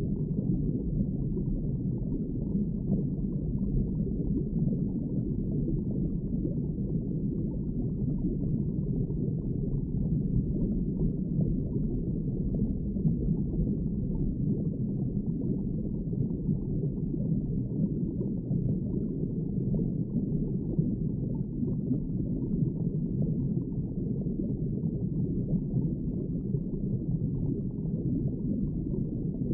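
Steady underwater ambience: a low, muffled rumble of water with a bubbling, gurgling texture.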